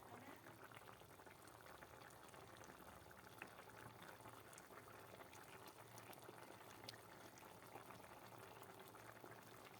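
Faint bubbling of a thin chicken curry gravy simmering in an uncovered karahi, with a few small pops.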